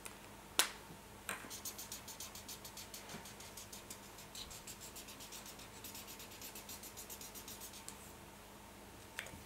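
Felt-tip marker scribbling on paper in quick back-and-forth strokes, about four a second. A single sharp click comes just before the scribbling starts, and a smaller click near the end.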